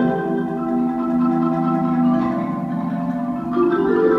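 Solo marimba music, mostly held low notes that climb to higher notes about three and a half seconds in.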